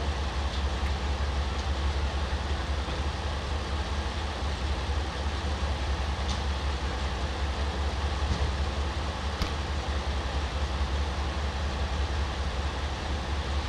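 Steady low drone of idling vehicle engines, with a few faint clicks over it.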